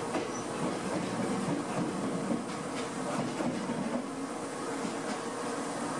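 Stationary electric train humming at a platform, its onboard equipment giving a steady hum with a few faint ticks over it.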